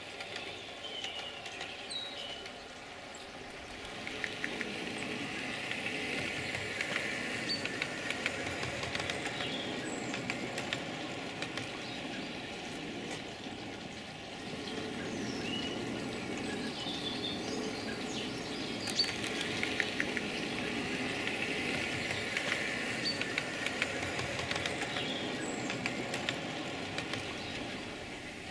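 OO gauge model train running along the track, its wheels rattling and clicking on the rails, growing louder twice as it passes close by.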